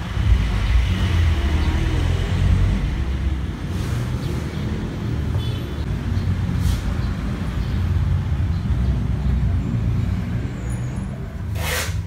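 Steady low rumble of passing road traffic, with a short sharp hiss just before the end.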